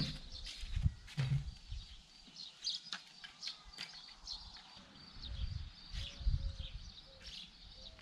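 Birds chirping over low rumbles and a few scattered knocks as a road bike is wheeled over and lifted onto a repair stand.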